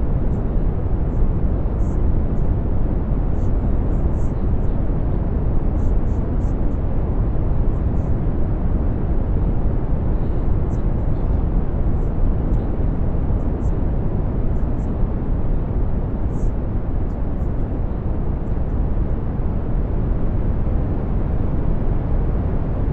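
Synthesized brown noise: a steady deep rumbling hiss, strongest in the bass and fading toward the treble. Faint, brief high ticks are scattered through it.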